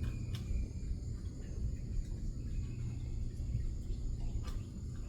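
Night insects chirring steadily and high over a constant low hum, with a couple of sharp clicks, one just after the start and one near the end.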